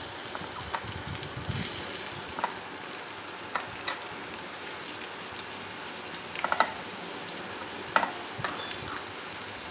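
Chopped onions sizzling in hot oil on a flat tawa griddle: a steady frying hiss with scattered sharp pops, a quick cluster of them about six and a half seconds in.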